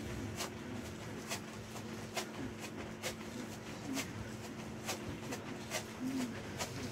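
Sneakers landing on an exercise mat during jumping jacks, about two sharp landings a second in a steady rhythm, over a steady low hum.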